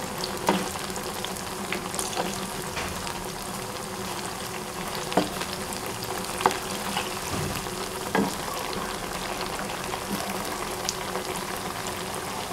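Batter-coated menjes (okara tempeh) pieces deep-frying in hot oil in a pan, a steady sizzle with a sharp pop or crackle every second or two. The pieces are still frying toward dry and crisp.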